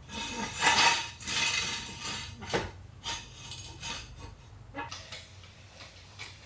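Metal hand tools and parts clinking and clattering during work under a car's front end, a dense burst of clatter over the first few seconds, loudest about a second in, then a few scattered, quieter clicks.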